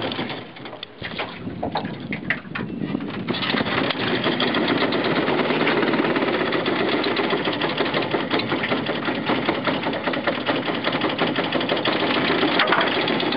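Vintage 1939 South Bend Bendix air-cooled outboard motor being started on its first run since last summer: a few seconds of uneven pulling and sputtering, then it catches about three seconds in and runs steadily with a fast, even beat.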